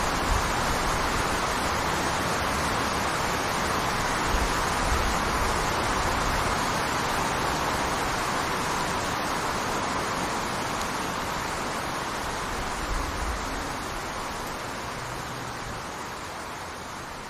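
A waterfall: water falling and splashing in a steady, even rush. It slowly fades out over the second half.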